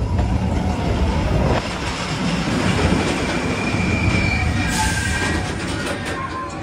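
Expedition Everest roller coaster train running along its track: a steady rumble of wheels with rushing air. A brief high squeal from the wheels comes about four seconds in.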